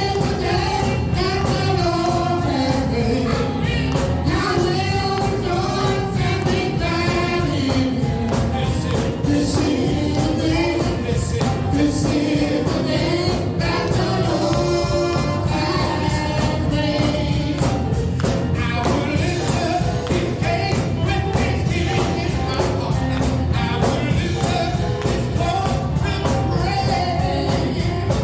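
Gospel worship music with voices singing a melody over a full band with a steady beat.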